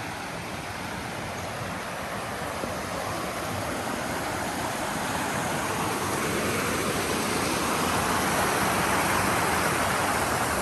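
Steady rushing of a mountain creek, growing gradually louder toward the end.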